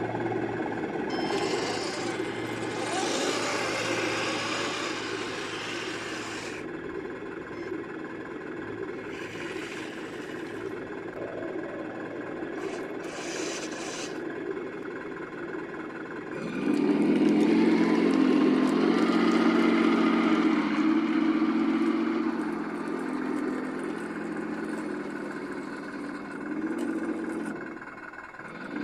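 Simulated engine sound from the speakers of 1/16-scale RC tank and truck models, running steadily, then much louder about halfway through, with the pitch rising briefly as it revs.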